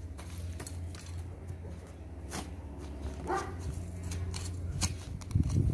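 Scattered short scraping clicks of a long-handled lawn edger cutting into turf along a bed edge, over a steady low hum. A dog barks once about three seconds in.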